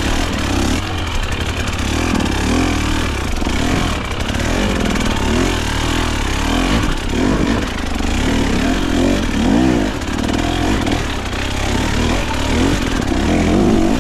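KTM dirt bike engine revving up and down over and over in short bursts of throttle.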